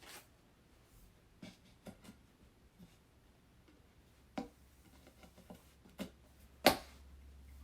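Scattered clicks and knocks of flat-pack vanity parts and hardware being handled during assembly, with the loudest knock near the end. A low steady hum starts right after it.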